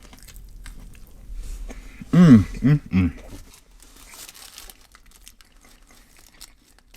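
A man chewing a mouthful of sandwich, with soft crinkling of the paper wrapper. About two seconds in he gives a short, three-part hum of approval.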